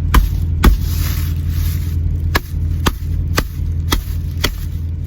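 A hammer striking the back of a machete blade to drive it into a coconut husk: about seven sharp knocks, mostly about half a second apart after a pause near the start. A steady low hum from the truck's idling engine runs underneath.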